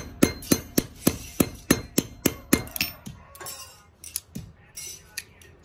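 Hand hammer striking a steel alligator clip on a round metal anvil: a quick, even run of about ten blows, three to four a second, that stops about three seconds in. After that come a few lighter, scattered metal clinks.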